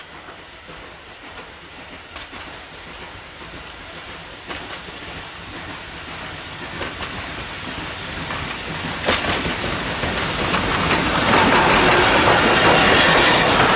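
Ex-LSWR T9 4-4-0 steam locomotive 30120 working a passenger train, its exhaust beats and rail noise growing steadily louder as it approaches. It passes close near the end, with a rush of steam and wheels clicking over the rail joints.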